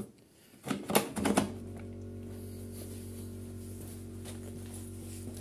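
Newly replaced electric starter motor of a Briggs & Stratton InStart mower engine, switched on after a few clicks and spinning the engine at a steady hum for about four seconds, stopping with a click. It turns evenly, with no compression strokes, as the spark plug is out.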